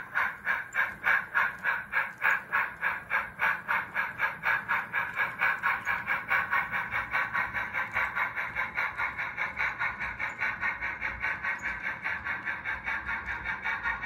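S scale model steam locomotive running with its train, a steady rhythmic beat about four times a second that grows slowly fainter as the engine moves away.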